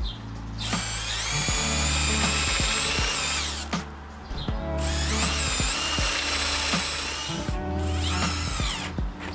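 Power drill boring a screw hole through a small wooden block in two long runs, its motor pitch rising and falling, then a shorter run near the end driving the screw in.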